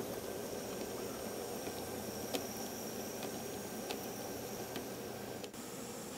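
Minitrix N-scale Köf model locomotive and its silo wagons running along the track: a steady whir of the small motor and rolling wheels, with several faint light clicks from the wheels on the rails.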